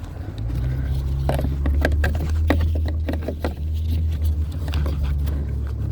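A plastic door-trim piece being pried and popped loose: scattered clicks and scraping over a steady low hum.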